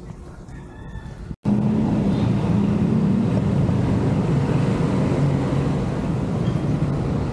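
Steady road traffic noise with a low, wavering motor-vehicle engine hum. It cuts in abruptly after a brief gap of silence about a second and a half in.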